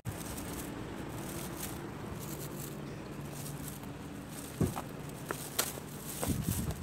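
Steady city background hum, with a few faint clicks in the last two seconds.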